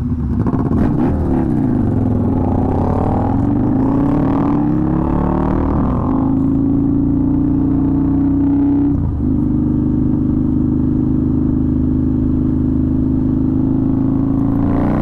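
Harley-Davidson Night Rod's V-twin engine pulling away and accelerating up through the gears, its pitch climbing about three times and dropping back at each shift. It then settles into a steady cruising note from about six seconds in, with a brief dip a few seconds later.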